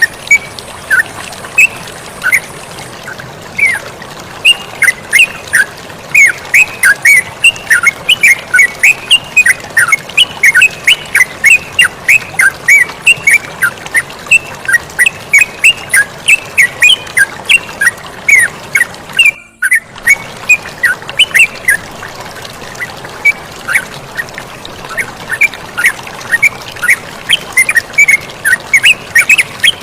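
Yellow-vented bulbuls chirping in a rapid, continuous stream of short calls over a steady sound of flowing water, broken by a brief silence about two-thirds of the way through.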